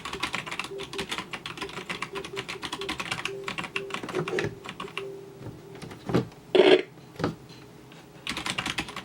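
Typing on a Velocifire VM01 mechanical keyboard. A fast run of key clacks lasts about five seconds, then comes a sparser patch with a few louder single strokes, then another quick run near the end. The keyboard is not too loud and sounds solid and mechanical.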